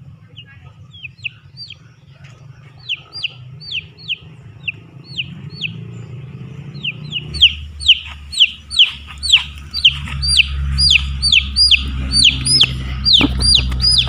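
Chick peeping: a run of short, high, falling peeps, sparse at first, then coming two or three a second and louder from about halfway through.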